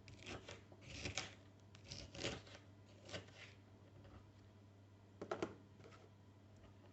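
Faint, scattered clicks and rustles of food being dropped into and arranged in a plastic lunchbox, with a couple of sharper knocks about five seconds in.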